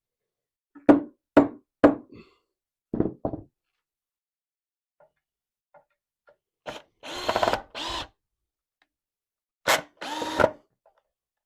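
Sharp knocks on wood, three evenly spaced and then two in quick succession, followed by four short runs of a power drill.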